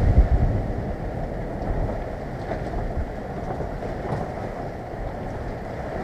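Typhoon wind rushing through thrashing shrub leaves and buffeting the microphone. The gust is strongest at the start and eases a little after about a second into a steady rush.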